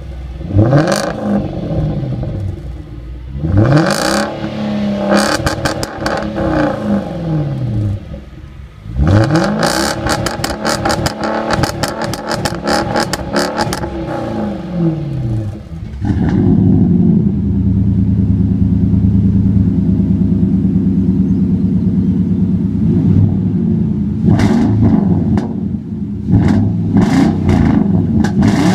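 Jaguar XKR V8 exhaust revved repeatedly while stationary, each rise and fall of revs followed by crackles as they drop. About halfway through it gives way to a Nissan Titan V8 pickup's exhaust running with a steady deep rumble, blipped a few times near the end.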